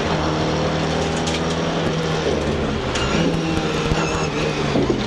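Ford Escort RS2000 Mk2 rally car's four-cylinder engine running hard, heard from inside the cabin, with a steady engine note that drops a little about three seconds in as the car slows for a turn. Light clicks and rattles sound over the road and tyre noise.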